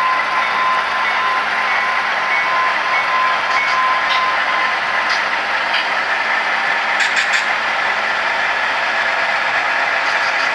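Model railroad train of diesel locomotives rolling past, with a steady running sound. A steady tone drops away about four and a half seconds in, and short clicks from the wheels on the track come and go, with a cluster about seven seconds in.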